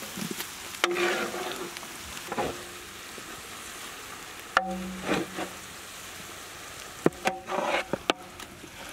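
Metal spatula stirring marinated eel pieces in hot oil and spices in a large aluminium pan, over a steady sizzle. It scrapes through the fish and knocks on the pan about four times, and the pan rings briefly after each knock.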